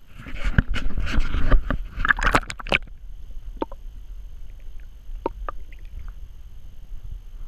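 Lake water splashing and sloshing around a camera in its waterproof housing as it dips into the shallows, with many sharp clicks. About three seconds in it quiets to muffled underwater sound with a few scattered ticks.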